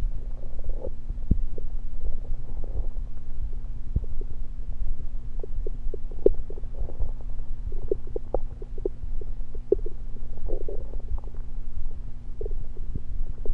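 Human stomach gurgling from close on the belly, full of carbonated diet soda: many quick pops and clicks and short bubbly gurgles, over a steady low hum.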